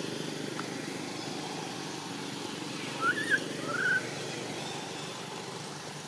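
Baby macaque giving two short, high squeaky calls a little past the middle, each rising then falling in pitch, over a steady low hum.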